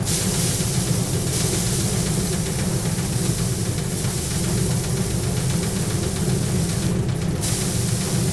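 Motorised paddy thresher running, its wire-loop drum spinning with a steady hum. A loud rushing hiss sounds as a bundle of rice straw is held against the drum and the grain is beaten off. The hiss eases off briefly about a second in and again near the end.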